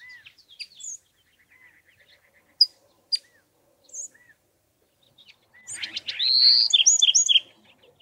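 Sharp single chink calls of a California towhee, two loud ones about two and a half and three seconds in. Past the halfway mark comes the loudest sound, a burst of Bewick's wren song: a rapid run of notes followed by clear whistled notes.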